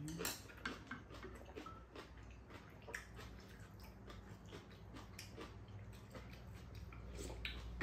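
Quiet eating at a table: spoons and chopsticks tapping and clicking against bowls in a scattered run of small clicks, with soft mouth sounds of eating.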